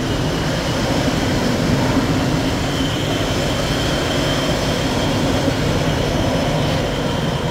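Jet aircraft engines running on the ground: a steady rushing noise with a thin high whine in the middle part.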